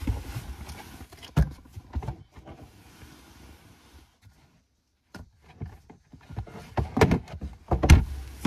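Rummaging for books inside a vehicle: rustling with a series of knocks and clunks, quiet for about a second midway, then louder thumps near the end as the books are pulled out.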